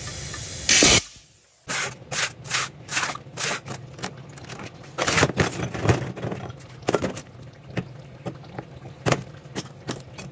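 Metal parts of a 700R4 automatic transmission clinking, knocking and scraping as they are handled and pulled apart, in irregular strikes. A short loud rush of noise comes about a second in.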